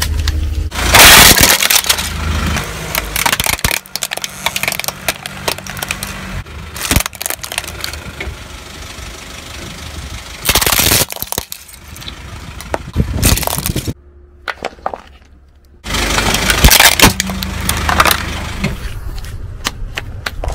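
Toys and other objects crushed under a slowly rolling car tyre: plastic cracking, crunching and breaking in several separate bursts, with a car engine running low underneath at times.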